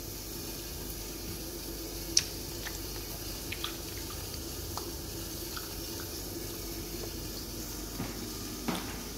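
Steady kitchen background hum with scattered light clicks and ticks, the sharpest one about two seconds in.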